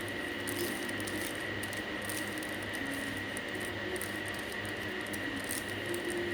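Plastic 3x3 Rubik's cube being turned by hand through an algorithm: a run of light, quick clicks and rattles of the layers, over a steady background hum and thin whine.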